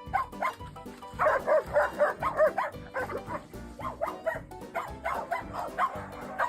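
A dog making a run of short yipping, whining calls that rise and fall in pitch, a few a second, over background music.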